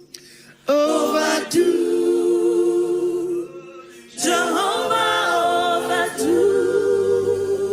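A group of voices singing a worship song unaccompanied in harmony, in two phrases of long held chords with a short breath between them, a little under a second in and again around the middle.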